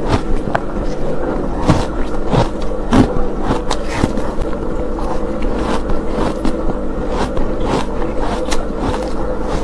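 Close-miked chewing of a frozen pink ice ball: irregular sharp crunches, a couple a second, the loudest about three seconds in, over a steady low hum.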